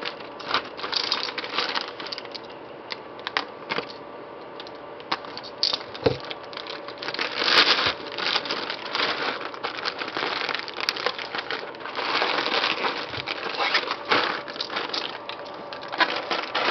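Plastic mailing bag crinkling and rustling as hands pull it open and dig inside, an irregular run of small crackles with louder handling about 7 seconds in and again around 12 to 14 seconds in.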